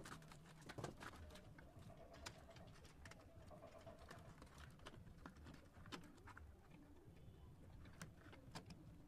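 Near silence: faint bird cooing, with a few light taps as bricks are pressed into wet mortar.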